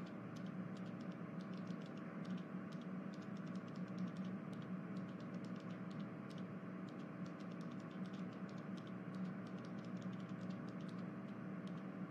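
Faint room tone: a steady low hum with light, irregular clicking throughout.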